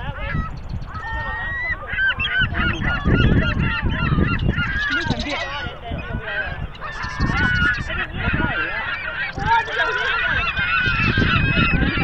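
Gulls calling over and over: many short, bending cries overlapping one another, over a low rumble.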